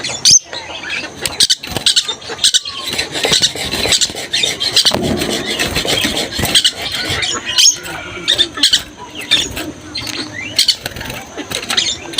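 Lorikeet chattering, a constant stream of shrill squeaks, screeches and clicks, the bird calling busily.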